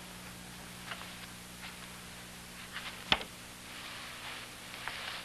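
Quiet room tone under a steady low hum, with a few faint soft rustles and ticks and one sharp click about three seconds in.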